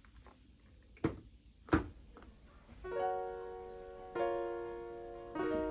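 Two sharp knocks about a second in, then lofi background music begins: soft electric-piano chords, a new chord struck roughly every second and a bit.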